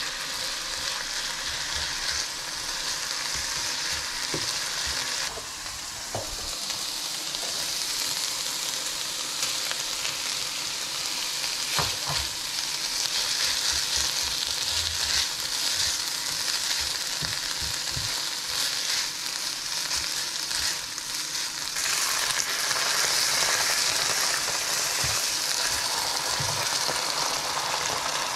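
Ground meat and vegetables sizzling in a nonstick frying pan while a spatula stirs them, scraping and knocking against the pan now and then. The sizzle gets louder about three quarters of the way through.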